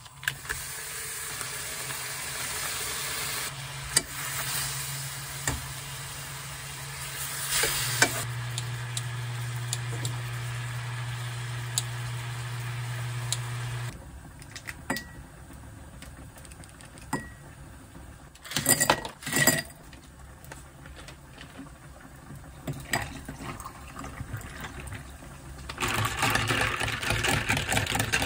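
Food sizzling steadily in a frying pan, stopping abruptly about halfway. Then scattered clinks of glass and ice, and near the end a long spoon stirring ice in a glass with rapid clinking.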